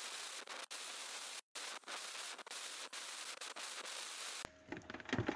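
Compressed-air blow gun hissing steadily as it blows dust and dirt off the in-tank fuel pump's cover, with a couple of brief breaks. It cuts off about four seconds in, followed by a few light clicks and handling noises.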